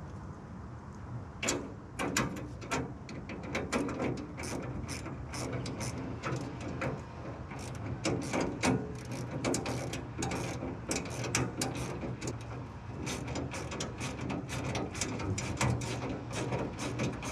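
Hand ratchet wrench clicking in quick runs as bolts are tightened by hand, starting about a second and a half in.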